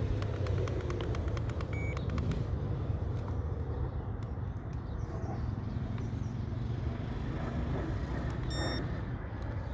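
Low, steady wind rumble on the microphone, with scattered faint clicks in the first two seconds and one short electronic beep near the end.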